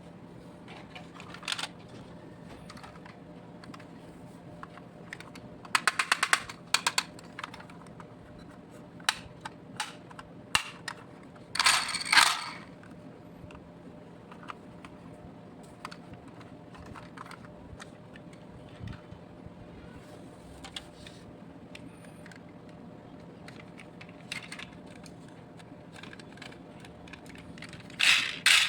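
Small diecast toy vehicles being handled: scattered sharp clicks and short rattles, with quick runs of rapid clicks about six seconds in, about twelve seconds in and near the end, over a faint steady hum.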